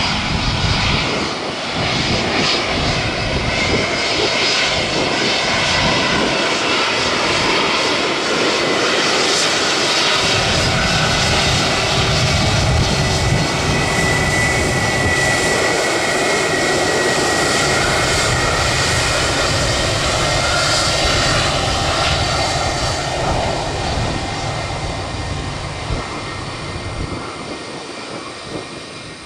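Jet airliner's engines passing close by: a steady whine over a deep rumble, loud for about twenty seconds before fading away near the end.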